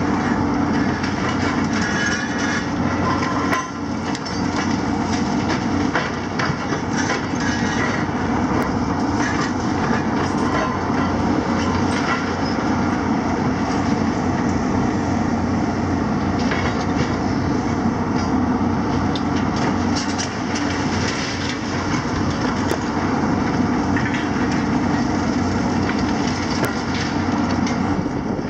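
Hitachi and JCB demolition excavators running together, engines droning steadily while their hydraulic grabs and crusher jaws crunch concrete and drag rubble, with constant irregular crackling and clatter of breaking masonry and debris.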